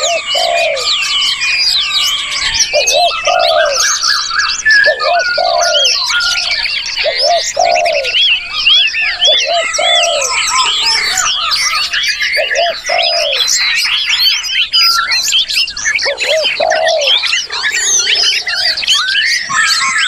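A dense chorus of songbirds singing at once: many overlapping whistled and chirped phrases, rising and falling in pitch. Under them, a lower cooing note repeats roughly once a second.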